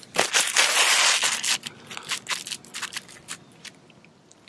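Asphalt shingles scraping with a gritty crunch as they are slid and laid into position on a shingled roof: a loud scrape for about the first second and a half, then lighter scattered scuffs and ticks.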